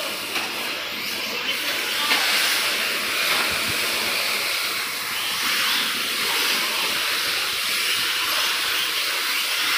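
1/8-scale electric RC buggies racing: a steady, hissing rush of their electric motors, drivetrains and tyres on the track.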